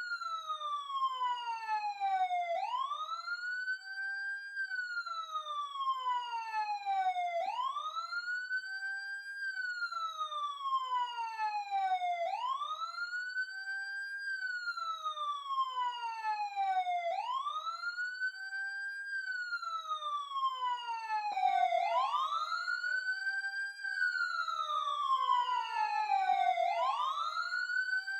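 Police car siren on wail: the tone climbs quickly, holds briefly at the top, then slides slowly back down. It repeats steadily, about once every five seconds, six times.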